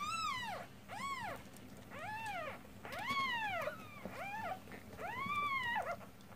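Newborn kittens, eyes not yet open, mewing over and over: six high, arching cries about a second apart, made as they crawl blind in search of the mother cat's teat.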